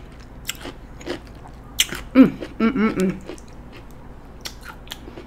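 Close-up chewing of a mouthful of cucumber, with wet mouth clicks and smacks throughout. Just past the middle comes a short run of hummed "mm" sounds.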